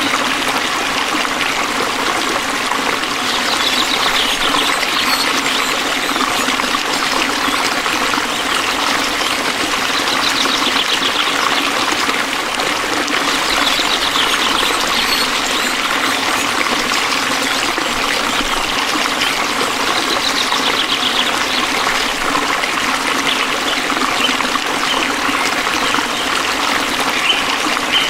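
A stream trickling and flowing steadily. A high, rapid animal trill, such as a frog or insect call, comes in four times for a second or two each.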